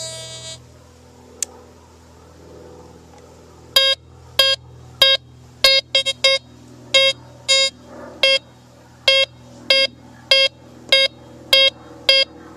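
Metal detector beeping in short, even-pitched beeps, about one and a half a second, starting about four seconds in and signalling a metal target close by. A steady detector hum cuts off about half a second in.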